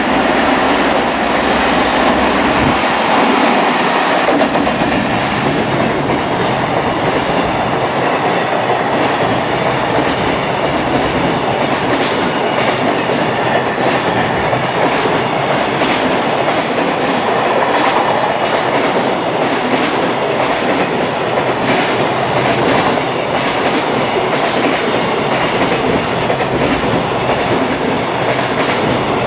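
A freight train's wagons rolling past at speed, the wheels clattering over rail joints in a continuous run of clicks.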